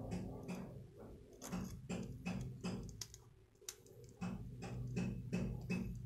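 Light metallic clicks and ticks from a precision screwdriver working the small screws and metal parts of a folding knife's handle, about two or three a second with a short pause midway, over a low steady hum.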